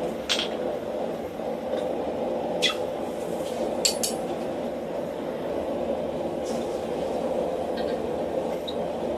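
A few light, scattered metallic clinks of steel tongs and bar stock being handled at the anvil, over a steady background hum.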